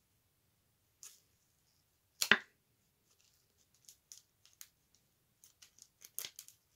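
A trading card and a rigid plastic top loader handled by a gloved hand: one sharp click a little over two seconds in, then a run of small light clicks and scrapes as the card is pushed at a top loader too thin to take it.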